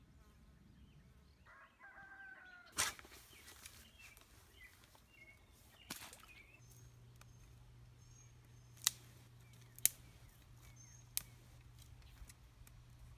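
Quiet outdoor ambience with faint bird calls and chirps, a few sharp clicks, and a low steady hum that sets in about halfway through.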